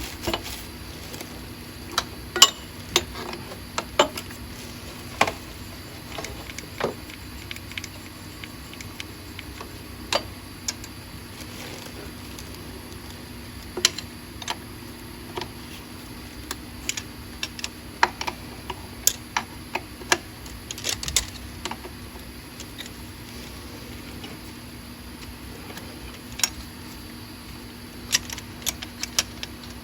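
Irregular metallic clinks and clicks of hand tools, bolts and parts being handled during a top-end teardown of a 6.0L diesel engine, some in quick clusters, over a steady low hum.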